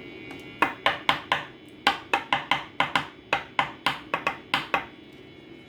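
Trading cards handled against a tabletop: a quick run of about seventeen sharp taps, starting about half a second in and stopping near the end, with a brief pause after the first four.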